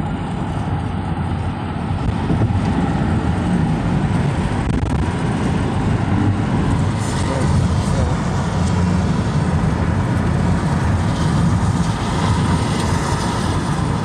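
Steady road noise of a car driving on a freeway, heard from inside the car: a low, even rumble from the tyres and engine.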